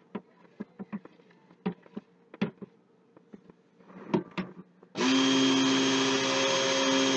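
A few light taps and clicks, then about five seconds in an electric stick blender switches on and runs steadily in a pot of cold-process soap batter, blending it toward trace.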